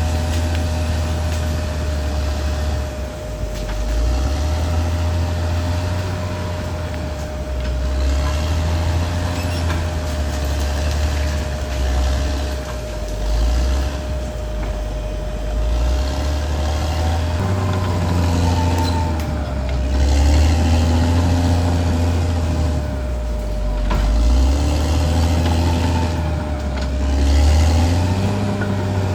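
Caterpillar D6R XL crawler bulldozer's diesel engine running hard, its note rising and falling repeatedly as it works. A steady whine runs throughout.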